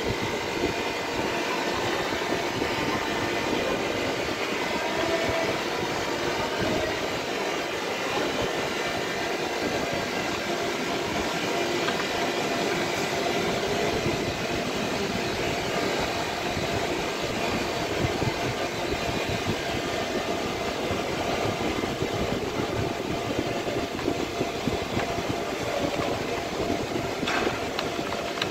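Steady running noise of workshop machinery: a constant mechanical hum with several faint steady tones over a noisy wash, unchanging throughout.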